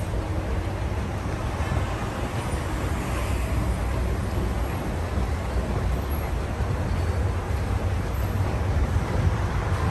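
Steady low rumble of street traffic and city noise.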